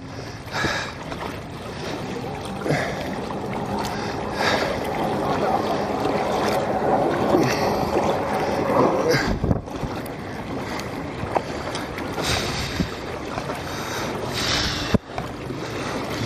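Kayak paddle blades dipping and splashing in lake water with a stroke about every two seconds, over water washing along the kayak's hull and some wind on the microphone.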